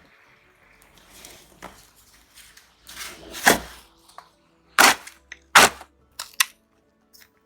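Snow shovel scraping and striking packed snow and ice: a few short scrapes and sharp knocks, with the three loudest strikes between about three and six seconds in.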